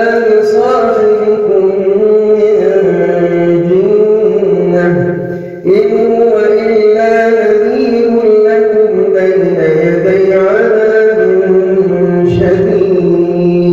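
A man reciting the Quran in a slow, melodic chanted style (tajweed), one voice holding and bending long notes, with a brief pause for breath about five and a half seconds in.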